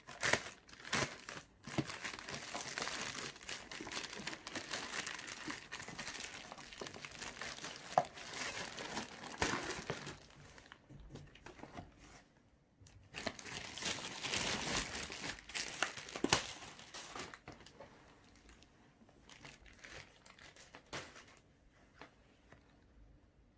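Plastic courier mailer bag being torn open and crinkled by hand, a long stretch of rustling and tearing plastic. It gives way to sparser, quieter handling noises in the last few seconds.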